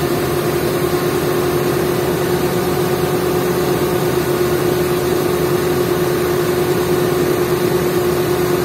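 XCMG 50-ton mobile crane's diesel engine running steadily, with a constant whine held over the engine note.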